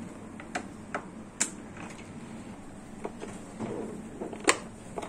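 Plastic housing of a Kärcher K7 pressure washer being handled and opened: about half a dozen sharp plastic clicks and knocks, the loudest near the end.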